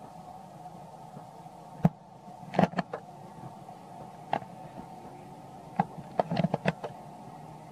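Scattered short, sharp crackles and snaps from a young macaque picking at a dry coconut husk: one about two seconds in, a few near three seconds, and a quick cluster around six and a half seconds. A steady low hum runs underneath.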